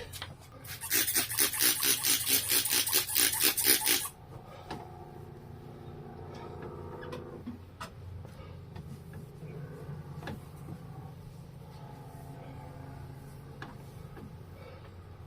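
A cloth rubbed briskly back and forth over a freshly wet-sanded plastic headlight lens: about four or five quick strokes a second for roughly three seconds, stopping about four seconds in. A faint low hum and a few soft ticks follow.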